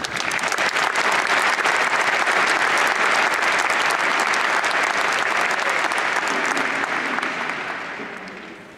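A large audience applauding: dense clapping that dies away over the last second or two.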